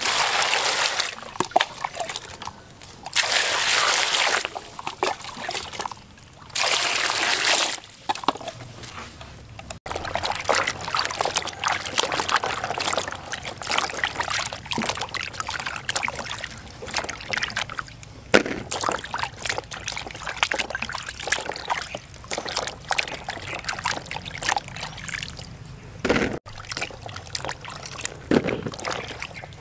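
Water poured in three bursts over cucumbers in a plastic basin, followed by hands sloshing and rubbing the cucumbers in the water with a long run of splashing. A few separate knocks near the end.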